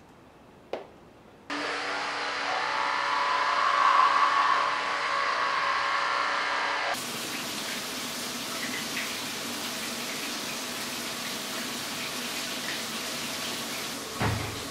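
A click, then a basin tap turned on and water running hard into the sink. From about seven seconds this gives way to a steady hiss of water falling from an overhead rain shower head, with a dull thump near the end.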